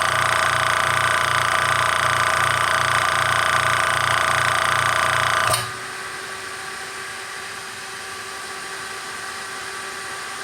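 Hill EC-3000 high-pressure PCP air compressor running with a steady low pulse, then cutting out abruptly about five and a half seconds in as its 75 °C thermal cut-off trips. A quieter steady whir of the cooling fans carries on after it stops.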